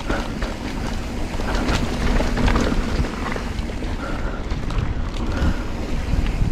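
Mountain bike riding fast over a dirt trail: wind buffeting the action camera's microphone over the rumble of knobby Maxxis tyres, with frequent sharp clicks and rattles from the bike over bumps.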